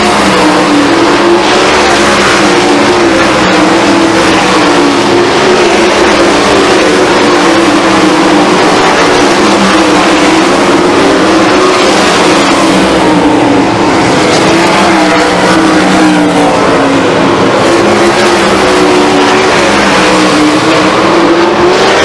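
A field of 410 sprint cars racing, their 410-cubic-inch methanol-fuelled V8s running loud and without a break. The engine notes rise and fall as the cars pass and work through the turns.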